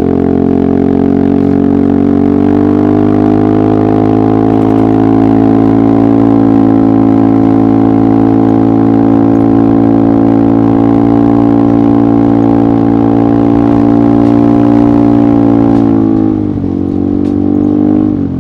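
Yamaha XMAX maxi-scooter's single-cylinder engine running at steady revs under way. The revs dip briefly about sixteen seconds in, then pick up again.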